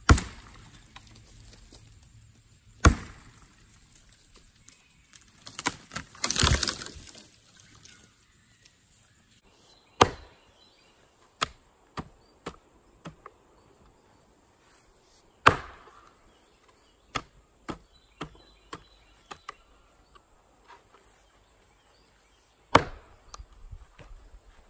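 Small Wetterlings hand axe chopping wood. It lands two hard blows into a dead dogwood trunk, then comes a rougher noise lasting over a second. Later it makes sharp blows splitting a log on a chopping block, with lighter knocks between them.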